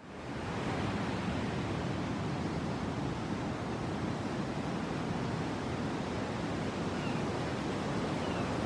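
Steady wash of sea surf, fading in at the very start and holding even throughout.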